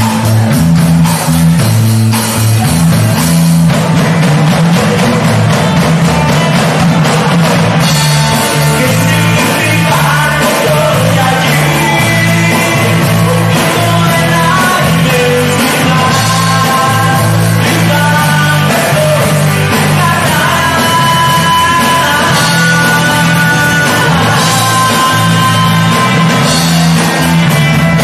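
Rock band playing live: drums, bass and guitars, with a wavering lead melody line filling out the sound from about eight seconds in.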